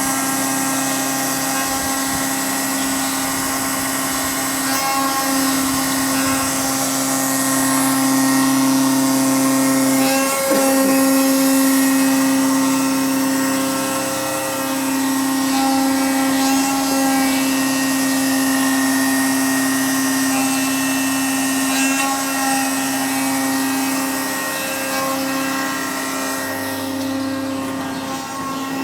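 Danobat RTM 1600 surface grinder running: a steady machine hum with a high hiss over it, and a lower hum that cuts in and out every few seconds.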